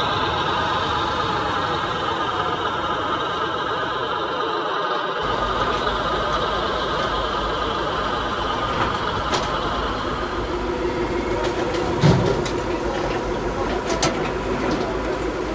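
Remote-control construction models running: a steady mechanical whir of small electric motors and gears. About five seconds in a deeper rumble joins it, and about twelve seconds in there is a single short thump.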